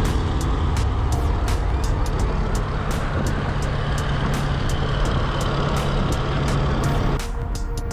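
A vehicle engine running steadily under way with road noise, a constant low hum throughout; it cuts off abruptly about seven seconds in.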